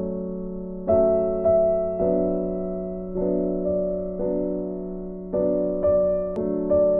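Background music: slow piano chords, each struck and left to fade, a new one roughly every second.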